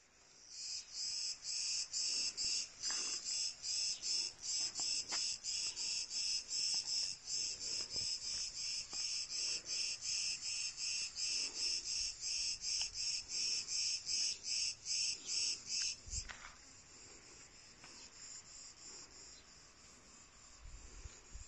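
Cicadas chirring in a steady pulsing rhythm, about three pulses a second, that stops suddenly about sixteen seconds in, leaving only a faint high insect hiss.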